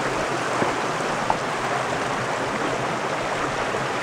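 Shallow creek water rushing steadily over rocks and riffles, with two small clicks in the first second and a half.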